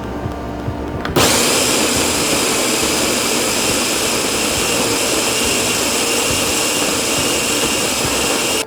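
Sboly SYCG-801 automatic conical burr coffee grinder grinding beans: its motor starts about a second in and runs steadily with a high whine, then stops suddenly near the end. Acoustic guitar music plays before it starts.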